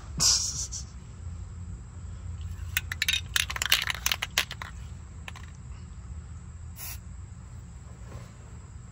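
Aerosol spray paint can handled and shaken, its mixing ball rattling in a quick cluster of clicks a few seconds in, after a short hiss at the start.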